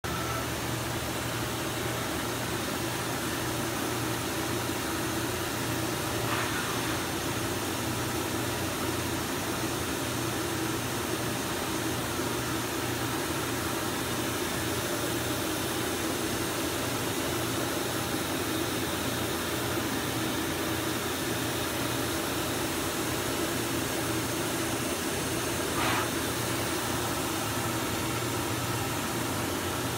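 Kitamura MyCenter-3X CNC vertical machining center under power, giving a steady mechanical hum with an even hiss. Two short faint clicks come about twenty seconds apart.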